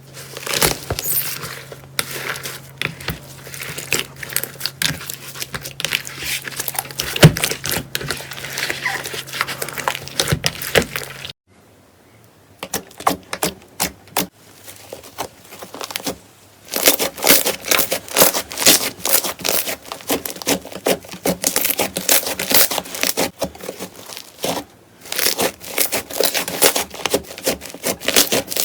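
Slime being squeezed and pressed by hand, a dense run of crackles and pops, with short breaks about 11 and 25 seconds in.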